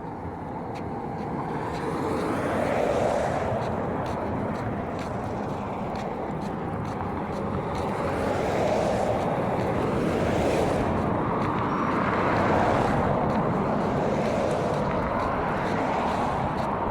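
Road traffic going by: several vehicles, one after another, each swelling and fading in a steady rush of engine and tyre noise.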